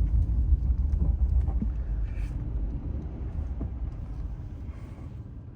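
Car interior rumble of engine and road noise, dying down gradually as the car slows to arrive.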